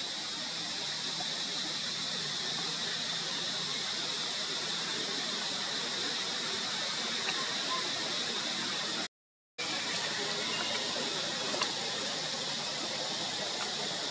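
Steady outdoor ambient hiss with no distinct events, broken by a sudden half-second dropout to silence about nine seconds in, and a faint tick or two.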